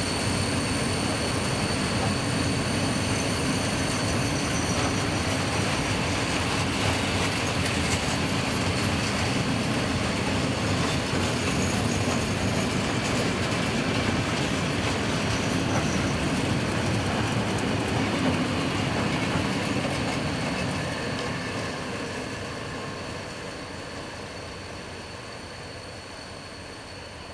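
Railway tank wagons of a freight train rolling past close by, their wheels running steadily on the rails. The sound fades from about twenty seconds in as the end of the train moves away.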